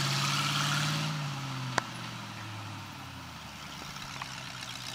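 Off-road Jeep buggy's engine running at low revs, then easing off about a second in, dropping in pitch and growing fainter. A single sharp click comes shortly after.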